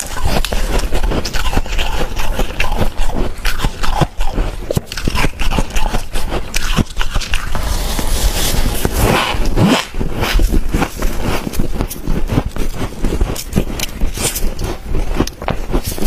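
Dry humidifier frost being crunched and eaten: a dense, continuous run of loud crackling crunches.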